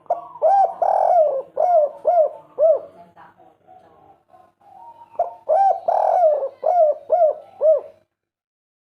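Spotted dove (tekukur/derkuku) cooing in its 'kuk 3' song: two phrases of arched coos a few seconds apart. The sound cuts off abruptly near the end.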